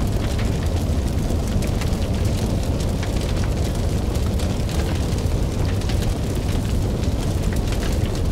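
Sound effect of burning flames: a steady deep rumble with constant crackling throughout.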